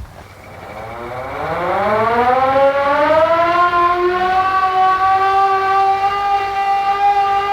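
Civil defense air raid siren starting up: it begins suddenly, its pitch rises smoothly over about three seconds as it winds up, then it holds one steady howling tone.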